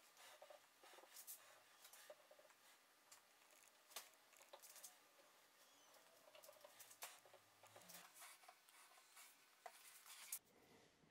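Near silence with faint, scattered light clicks and taps as glue is dabbed from a plastic squeeze bottle into dowel holes in a wooden frame.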